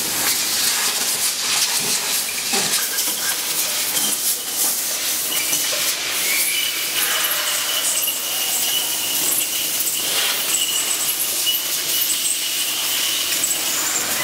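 Compressed air hissing steadily from a handheld air blow gun aimed into an open silicone injection mould to free the moulded seals. A thin, steady high-pitched whine runs underneath, with a few light clicks.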